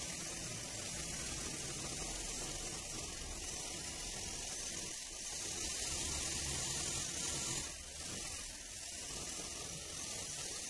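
Cordless drill running steadily as it drives a long bit through a steel disc-blade blank held in a drilling jig. It eases off briefly about five seconds in and again about eight seconds in.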